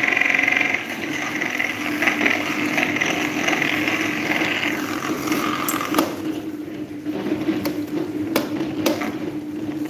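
Electric table fan running with a steady motor hum. A brighter whirring layer fades out about halfway through, and a few sharp clicks follow.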